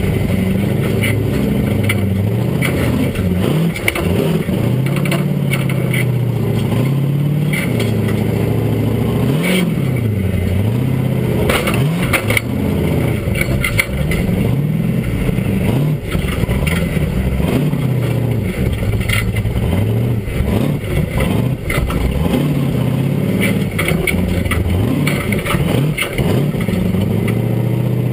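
Chevy 572 big-block V8 of an off-road buggy, heard from the cockpit, revving up and down again and again while driving over rough ground, with scattered knocks and scrapes from the chassis.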